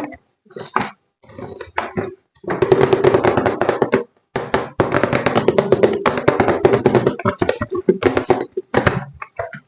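Rapid tapping and clattering from hands handling objects, in two long stretches with a short break about four seconds in.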